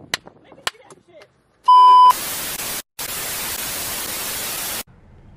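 A short, loud, steady beep, followed by about three seconds of TV static hiss with a brief break in it: a glitch-transition sound effect.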